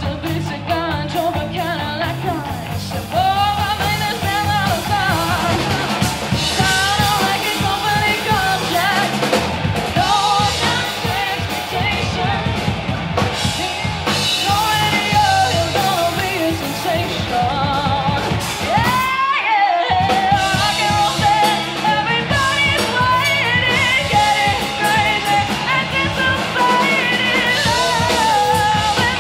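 Live rock band playing: a female lead vocal sings over electric guitars and a drum kit, heard from among the audience. About two-thirds of the way through the band drops out for a moment, then comes straight back in.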